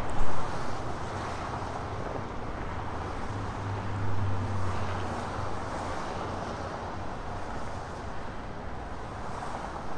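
Steady wind on the microphone over a low rumble that swells about four seconds in, with a couple of loud bumps at the very start.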